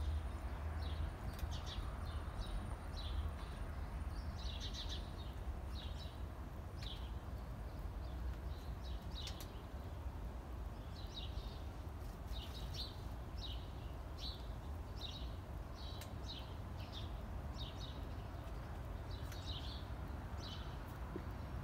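Small birds chirping in short, repeated calls, about one or two a second with brief pauses, over a steady low rumble.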